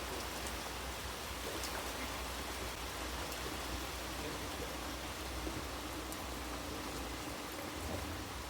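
Steady rain falling during a severe thunderstorm.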